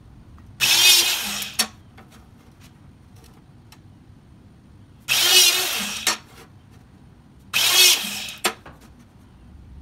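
Electric hydraulic hole punch running in three bursts of about a second each as it punches holes through a steel plate, each burst ending in a short sharp clack. Light clicks between the bursts come from the plate being slid into place.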